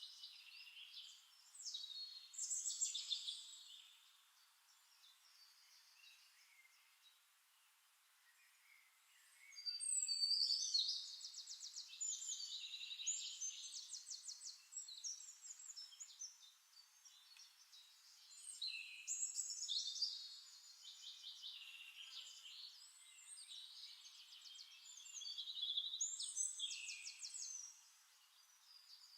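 Small birds singing: bursts of high, quick trilled phrases with fainter chirps between them.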